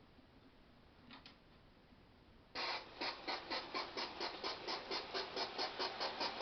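Bachmann G-scale 4-6-0 model steam locomotive: quiet at first with a faint click, then about two and a half seconds in it starts chuffing in a steady rhythm, about three chuffs a second, picking up slightly.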